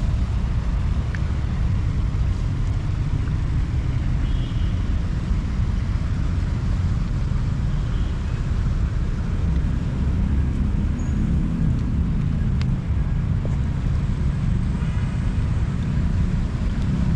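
Steady low rumble of city road traffic, an even drone with no single vehicle standing out.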